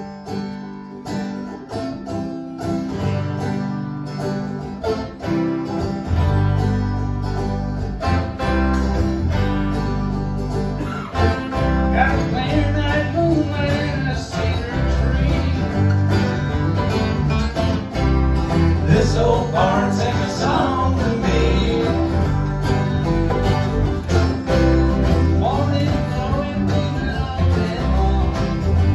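Live acoustic bluegrass band starting a song: guitars and mandolin picking the opening, a bass coming in about six seconds in, then a man's voice singing over the strumming.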